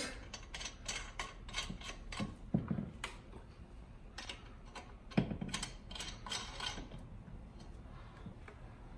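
Lug nuts being threaded by hand onto a UTV wheel's studs: irregular light metallic clicks and ticks, busiest about five to seven seconds in.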